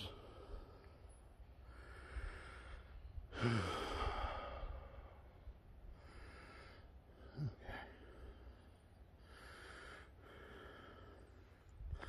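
A man's heavy breathing while walking: long, audible breaths every couple of seconds, a few ending in a short sigh that drops in pitch, over a faint low rumble.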